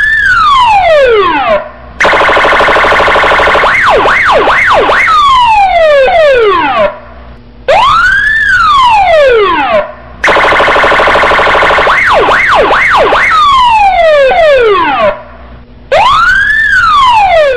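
Loud electronic police siren cycling through its tones: long rising-and-falling wails, a harsh steady buzzing horn tone and quick up-and-down yelps, with the whole sequence playing twice.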